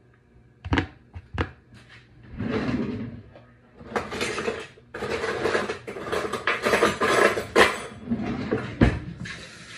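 Kitchen utensils clattering and rattling as a drawer is rummaged through, with a few sharp knocks.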